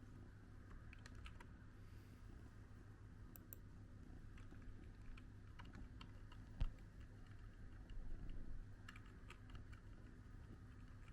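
Faint, scattered light clicks and taps, with one dull thump a little past halfway, over a low steady hum.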